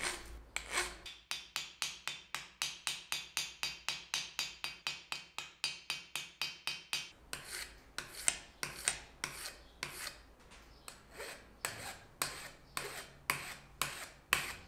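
Hand file scraping across the metal tip of a wooden-handled pressure flaker to shape it: quick, even strokes about four a second for the first half, then slower, more spaced strokes.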